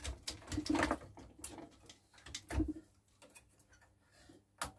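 Clicks and light knocks of hands working wires, connectors and plastic parts inside an opened CRT monitor chassis, with a few brief low hums in between.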